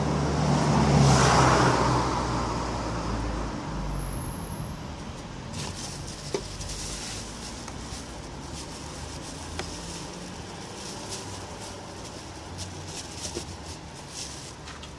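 A car passing by, swelling to a peak about a second in and fading away over the next few seconds. After that, light scattered clicks and rustles as the plastic sensor housing and nylon bag are handled.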